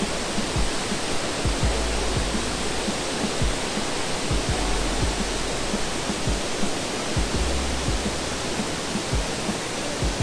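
Water rushing steadily over a river dam, a constant even roar, with irregular low thumps and rumbles underneath.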